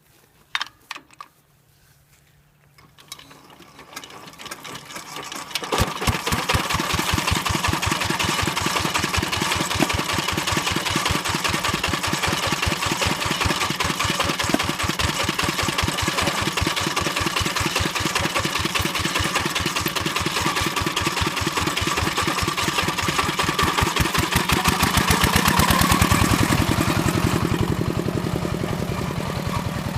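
Motor-tractor engine starting: a few clicks, a rising sound, then the engine catches about six seconds in and runs steadily with even firing pulses. Its revs rise briefly about 25 seconds in and ease again near the end.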